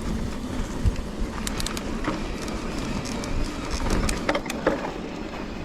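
2021 Trek Rail 9.7 electric mountain bike rolling down a dirt forest trail: steady tyre and wind noise, with scattered sharp clicks and rattles from the bike about a second and a half in and again around four seconds in.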